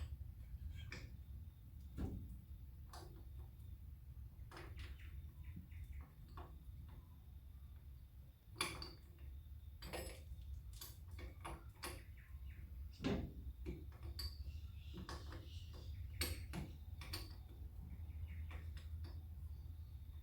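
Flare spanner clinking and tapping against a brake line fitting as the line is worked loose: scattered, irregular light metallic clicks and knocks, a few sharper ones about 2, 8.5, 13 and 16 seconds in.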